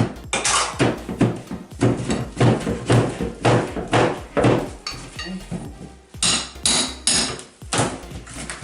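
Hammer blows knocking ceramic wall tile and drywall loose, struck about two times a second with a short pause about halfway through.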